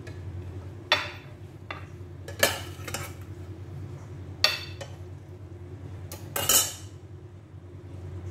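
Metal serving spoon clinking and scraping against a stainless steel pot and a plate as sauce is spooned out: four sharp clinks about two seconds apart, over a steady low hum.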